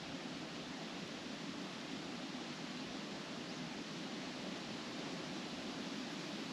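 Wind blowing steadily through trees, the leaves rustling in a continuous even hiss.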